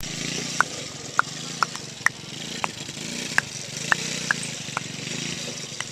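Small youth ATV engine running steadily, its hum swelling and fading as the quad circles. About ten short, high chirps come at irregular half-second gaps over it and are the loudest sounds.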